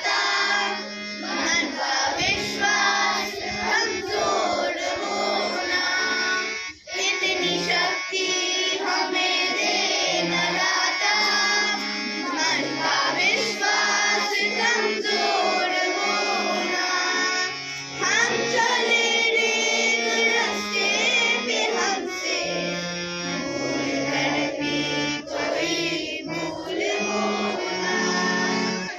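A song plays with a singing voice over a stepped bass line; it starts abruptly at full level.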